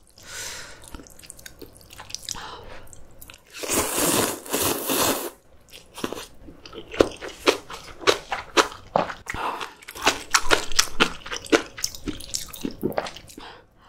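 Close-miked eating of noodle soup and kimchi: a long loud slurp about four seconds in, then a run of crisp crunching and chewing of kimchi.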